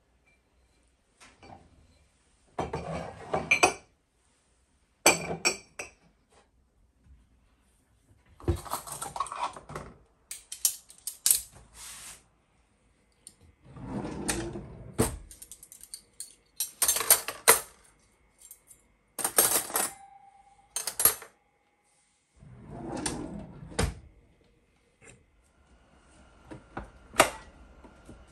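Kitchen things being handled and put away: a run of separate clinks, clatters and rustles of dishes, utensils and other items, each a second or so long, with short pauses between them.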